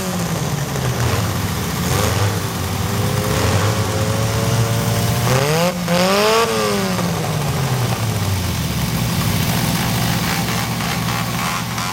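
An engine idling, then revving up and back down once about halfway through.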